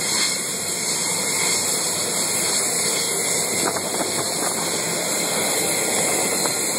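Jet aircraft engines running with a steady hiss, no rise or fall in level.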